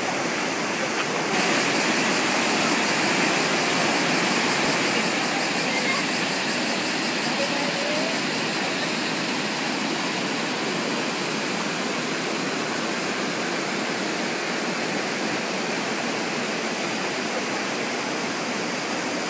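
Shallow river rushing over rocks and rapids: a steady, loud wash of moving water, a little louder and brighter just over a second in.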